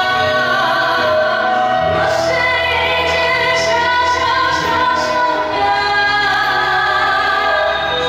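A woman singing a slow pop song into a microphone, accompanied by a Chinese music ensemble with electronic keyboard and bamboo flute (dizi).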